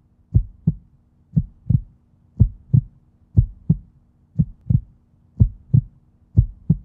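Heartbeat sound effect: seven deep double thumps, lub-dub, about a second apart, over a faint steady hum.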